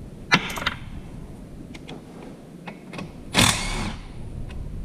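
A handheld power tool runs in one short burst of about half a second, backing out the pump feed bolts on a Ford E4OD automatic transmission. Sharp clicks of metal tools on the transmission come about half a second in and again later.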